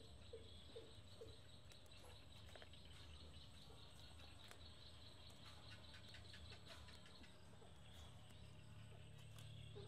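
Near silence: faint outdoor background with a steady high hiss, a short low bird call repeated about twice a second that stops about a second in, and faint ticks and snaps of young cassod leaves being picked off their stems.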